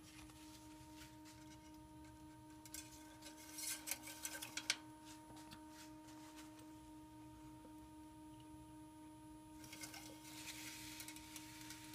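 Faint rustling of a paper towel wiping an engine oil dipstick, then the dipstick being slid back into its tube and drawn out again, with the towel rustling near the end. A steady faint hum runs underneath.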